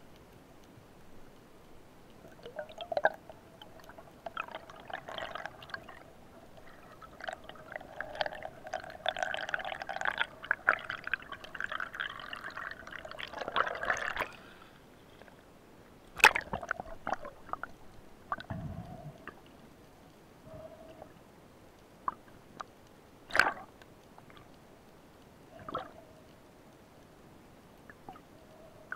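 Water gurgling and bubbling picked up underwater through a camera housing, dense and crackly for the first half. Later come a few separate sharp, loud splashes or knocks.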